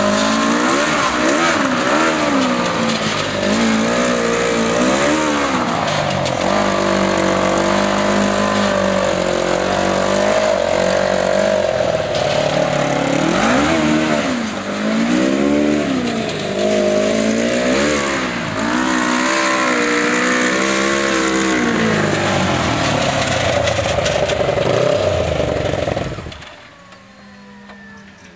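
1992 Honda CBR600 inline-four motorcycle engine in a home-built buggy, running loud and revving up and dropping back over and over. The exhaust is loud from a header pipe leak where a nut is missing. The engine sound cuts off suddenly near the end.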